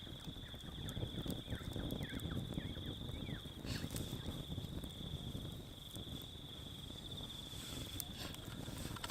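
Campfire crackling with scattered small pops, under a steady high chirring of crickets.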